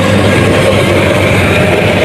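Rice combine harvester's diesel engine and threshing machinery running steadily under load, a loud continuous drone.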